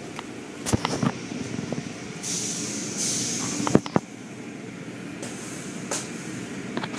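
Automatic car wash tunnel machinery running with a steady rumble, with a hiss lasting about a second partway through and a few sharp knocks.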